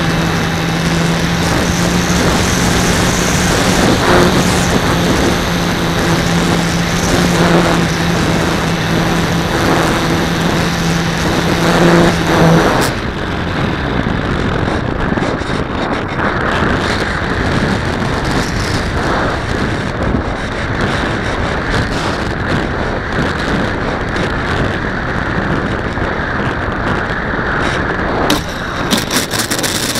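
Electric motor and propeller of a Super Cub S RC plane running at a steady pitch, heard from a camera on the airframe over rushing air. About halfway through, the motor cuts off and only the air noise of the glide remains; near the end the wheels touch down on asphalt with knocks and a rolling noise.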